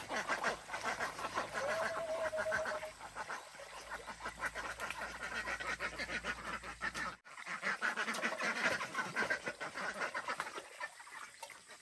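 A flock of white domestic waterfowl quacking and gabbling in a dense, rapid chatter, with one drawn-out call about two seconds in.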